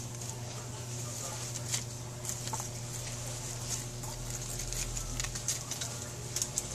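Grapevine leaves rustling and a kitten's claws scrabbling on the vine's bark as it climbs: a run of short, sharp scratches and ticks, irregularly spaced, over a steady low hum.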